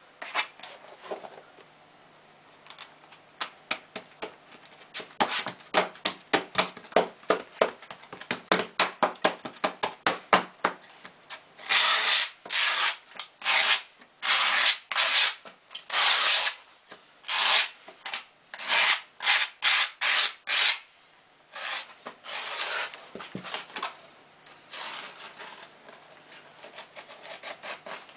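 Sheet of skateboard grip tape being rubbed and scraped down onto the deck by hand, a long series of rasping strokes of the gritty surface. The strokes are short and quick at first, then longer and louder, and fainter near the end.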